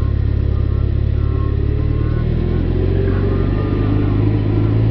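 Motorcycle engine running at a steady speed, heard as a loud, even, low drone.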